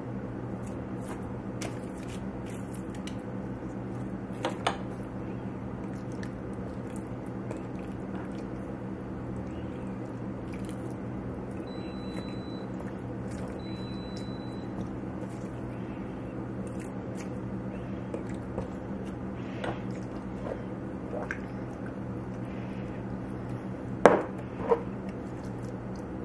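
Roasted red peppers squishing as they are pulled from a plastic freezer bag and pressed by hand into glass mason jars, with scattered light clicks, a sharp knock about four and a half seconds in and two louder knocks near the end. A steady low hum runs underneath.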